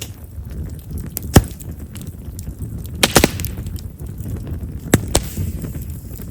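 Chestnut-wood campfire crackling, with sharp pops scattered through it: one about a second in, a quick cluster about three seconds in, and two more near the end, over a low steady rumble. Chestnut is known for popping, because of the large vessels in its wood.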